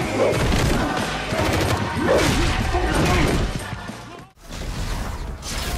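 TV action-scene sound mix: a music score under rapid crackling bursts and hits. It drops out suddenly for a moment about four seconds in, then picks up again.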